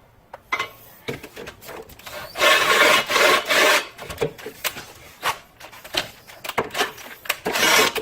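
Power drill with a step bit (Unibit) cutting a hole, a loud rasping burst about two and a half seconds in, with scattered clicks and knocks of the drill and bit being handled around it.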